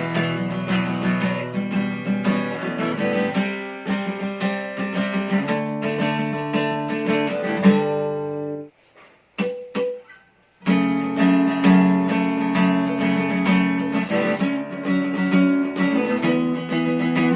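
SQOE Cranberries 41 acoustic guitar strummed with a pick, chords ringing. The playing stops for about two seconds near the middle, with a light pluck or two in the gap, then the strumming resumes.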